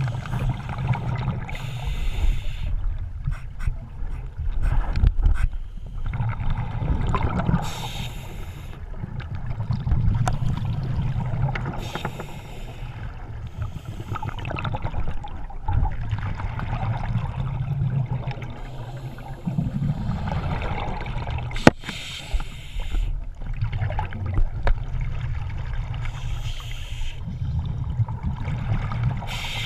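Underwater sound of scuba diving: bursts of a diver's exhaled regulator bubbles every few seconds over a steady low rumble of water moving past the camera housing, with one sharp click about two-thirds of the way through.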